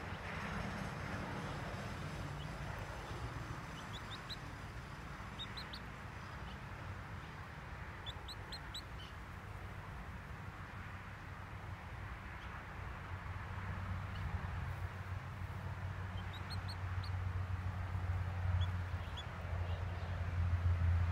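Short high bird chirps in small clusters of three or four, coming every few seconds over steady outdoor background noise. A low rumble grows louder near the end.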